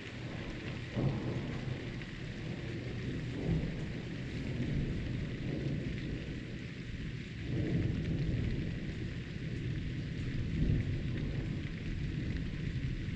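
Steady rain falling through a thunderstorm, with low thunder rumbling in repeated swells. The longest and loudest roll comes about halfway through.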